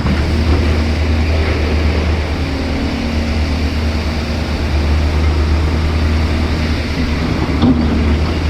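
Heavy diesel earthmoving machinery running steadily under load with a deep, continuous drone. There is a brief knock about seven and a half seconds in.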